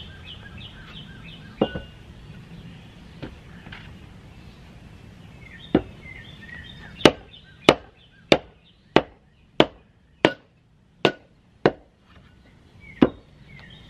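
Wooden mallet with a cottonwood head striking the back of a metal splitting blade set in a log round to split it: a few scattered blows, then a steady run of about eight sharp knocks roughly two-thirds of a second apart, and one more blow near the end. Birds chirp faintly in the first half.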